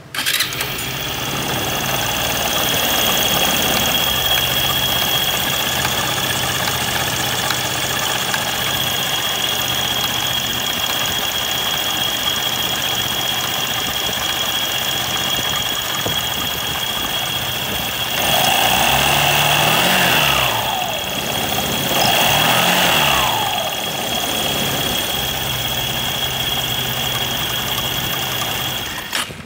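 Kymco Many 100/110 scooter engine running at idle with a steady high whine, revved up and back down twice about two thirds of the way through. The noise comes from the CVT rear pulley, whose slide rails are dry.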